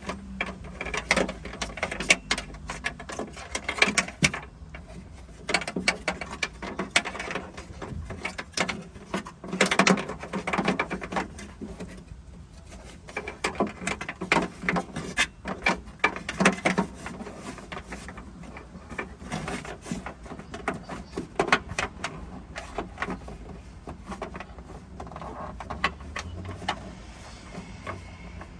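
Irregular clicking, scraping and rattling as a wire is pushed and worked through a car's hollow trunk hinge.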